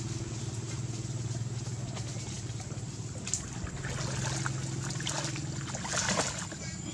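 Baby monkeys splashing and paddling in pond water, with a few sharper splashes in the second half as they tumble together. A steady low hum runs underneath, and a thin steady high tone comes in near the end.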